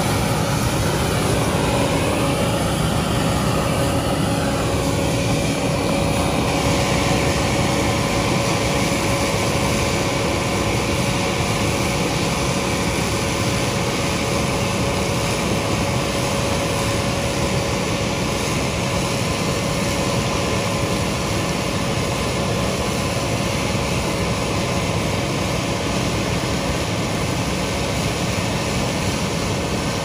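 Steady, unbroken engine and machine noise, with a faint wavering whine over it for the first several seconds.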